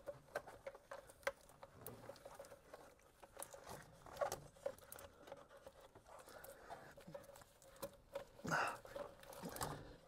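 Faint scattered clicks and rubbing as hands work a small rubber vacuum hose onto its fitting at the intake, with louder rustling about four seconds in and again near the end.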